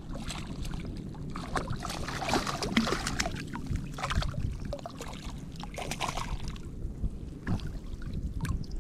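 Shallow bay water splashing and sloshing around a hooked speckled trout being brought to hand, with the loudest bursts of splashing about two and six seconds in.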